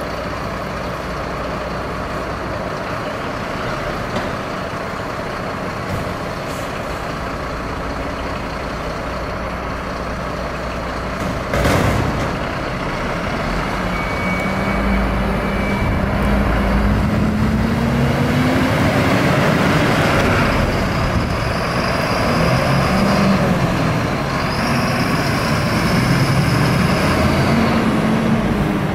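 Heavy diesel fire truck running, with a sharp air-brake hiss about twelve seconds in. The engine pitch then rises and wavers as the truck works up through its revs.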